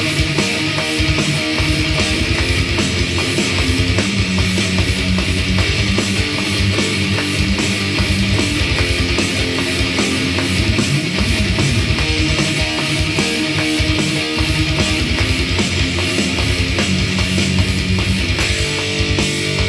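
Heavy distorted electric guitar riffing through an EarthQuaker Devices Astral Destiny pedal, over programmed metal drums with a fast, even kick pulse.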